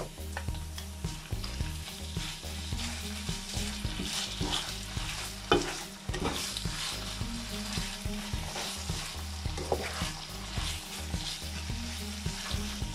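Raw chicken pieces and fried onion sizzling in a granite-coated frying pan, stirred with a slotted spatula that scrapes and taps against the pan, with one louder knock about five and a half seconds in. The chicken has just gone into the hot pan and is searing.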